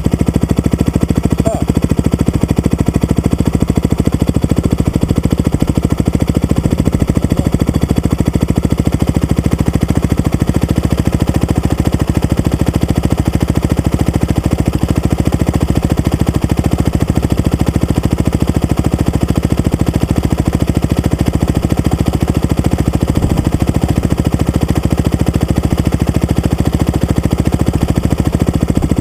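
Dirt bike engine idling steadily, with a fast, even pulse.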